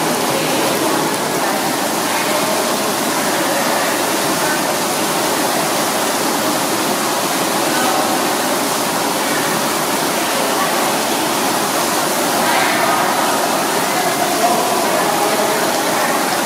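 Steady rush of the Rain Room installation's artificial rain: water falling from a ceiling grid of nozzles and splashing onto the floor grating.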